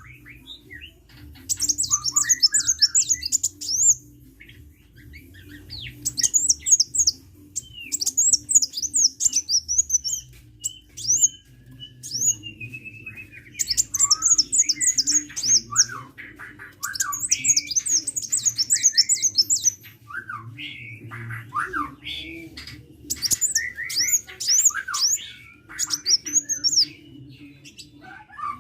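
Sunbird (Indonesian 'kolibri') singing vigorously: repeated bursts of rapid, very high twittering notes, each lasting a second or two with short pauses between, mixed with lower chirps. A low steady hum runs underneath.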